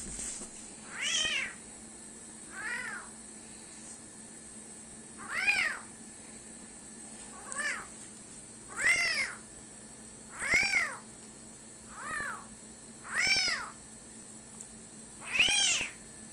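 A cat meowing over and over: about nine separate meows, each rising then falling in pitch, a second or two apart.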